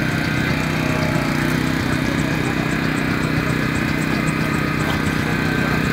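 Small petrol engine of a Jaws of Life hydraulic pump unit running steadily, powering the rescue tools.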